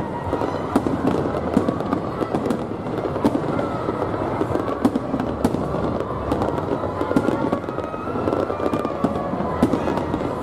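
An aerial fireworks display going off overhead: a dense, continuous barrage of bangs and sharp pops with no pause.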